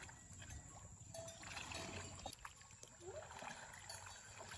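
Faint sloshing and splashing of pond water as people wade through it, groping for fish by hand.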